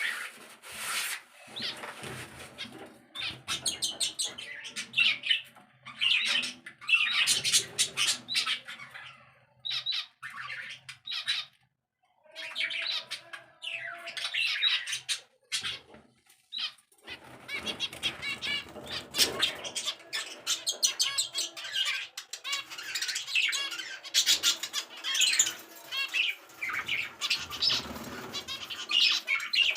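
Caged pet birds chattering, chirping and squawking, with repeated flurries of wing flapping.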